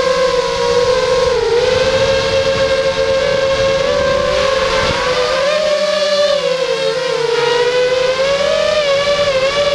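FPV racing quadcopter's brushless motors and propellers whining, heard on board. The pitch wavers up and down with the throttle, dipping about a second and a half in and climbing again later on.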